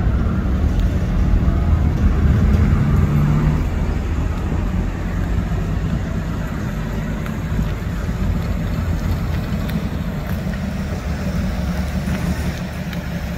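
Gasoline engine of a TUG MA50 baggage tractor running as the tractor drives along, louder for the first few seconds and then a lower, even running note.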